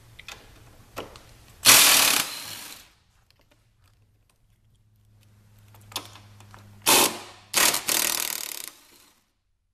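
Hard plastic snowmobile body panel being pried loose and pulled off, in short bursts of scraping and rattling. The loudest burst comes about two seconds in, and two more follow near the end.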